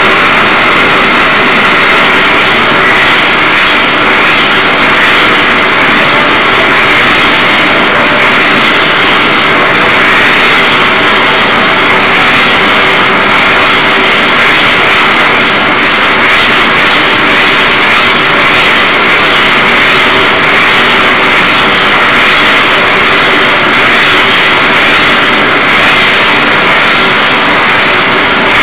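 Gas blowtorch flame burning with a steady loud hiss, heating the water pot of a Hero's steam engine.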